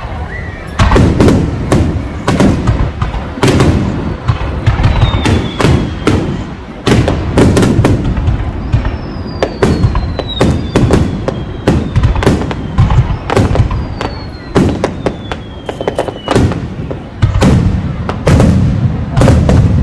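Fireworks display: aerial shells bursting in a rapid, continuous series of bangs and booms. Several high whistles fall slowly in pitch through the middle.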